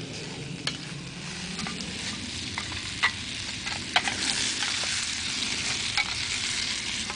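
Oiled vegetables sizzling in two army mess tins set on hot coals, with a few sharp clicks of a utensil against the tins as they are stirred. The sizzle grows louder about four seconds in.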